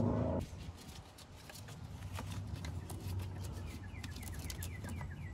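Scattered light clicks and knocks of hands and tools working on the engine's fuel pump bolts, with a bird chirping in quick falling runs twice. A loud low hum cuts off abruptly about half a second in.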